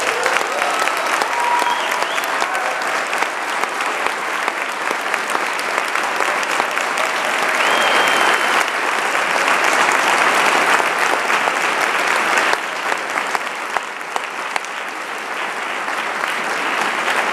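Auditorium audience applauding steadily after a concert band piece ends.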